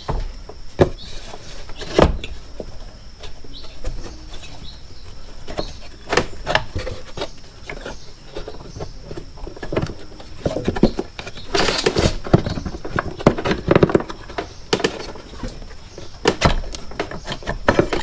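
Scattered metallic clicks, knocks and scrapes of tools and parts being worked on a motorcycle's rear brake, as the caliper is worked loose to slip it out. There is a busier run of clattering about twelve to fourteen seconds in.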